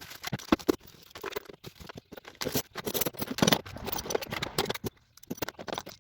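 Metal hand tools being handled and moved about: a run of irregular clicks, clinks and scrapes.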